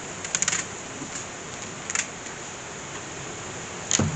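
Heavy rain falling steadily, with a few sharp clicks over it: a quick run of clicks about a third of a second in, another at about two seconds, and a louder knock with a low thud near the end.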